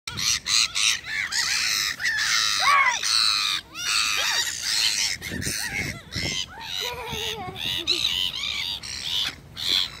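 A flock of black-headed gulls calling over and over, harsh squawks overlapping one another without pause, with sharp wing flaps as gulls and pigeons crowd in to feed.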